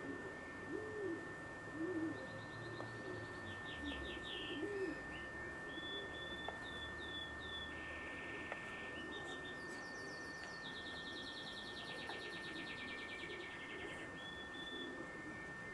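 Garden birds: songbirds chirping and trilling, with a fast trill in the latter half, while a dove coos several low notes in the first few seconds. A faint steady high whine runs underneath.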